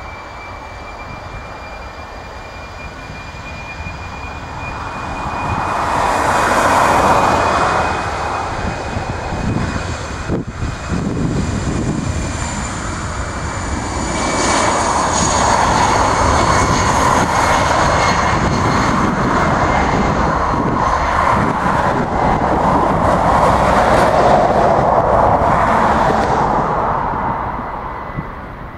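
Airbus A319-111's twin CFM56 turbofan engines at takeoff thrust during the takeoff roll. A high, steady fan whine sits over a loud rushing jet noise that swells twice and fades near the end.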